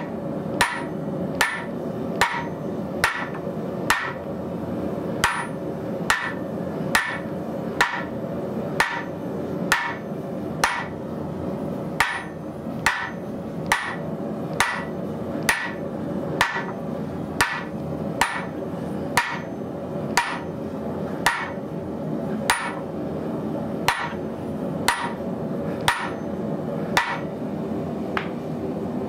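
Hand hammer striking a steel drift driven into the bore of a red-hot piece of extra heavy wall tubing on a swage block, drifting it square for a hardy tool bolster. About one blow a second, evenly paced, each with a short metallic ring, over a steady hum.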